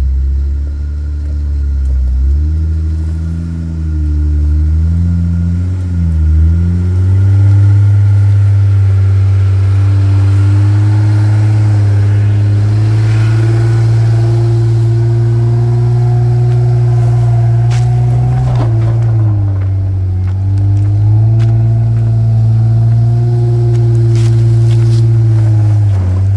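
Jeep Gladiator Rubicon's engine pulling at low revs on an off-road trail, its pitch sagging and climbing back as the throttle changes, with a dip about six seconds in and another about twenty seconds in. A few knocks come through about eighteen seconds in.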